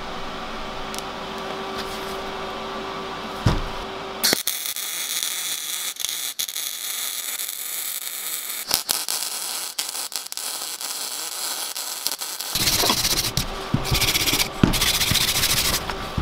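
MIG welder arc crackling and hissing as a motorbike chain is welded onto a steel axe head, starting about four seconds in as a steady run, then turning louder and stop-start in short bursts near the end.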